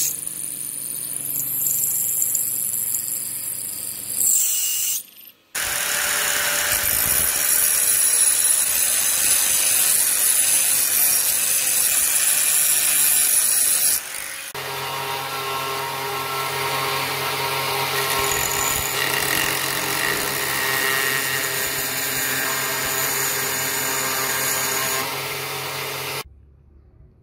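Power tools working a steel saw blade in stretches: first a drill bit boring through the steel plate with a chattering grind, then a loud angle grinder grinding the metal, then from about halfway a steadier grinder with a humming motor that stops shortly before the end.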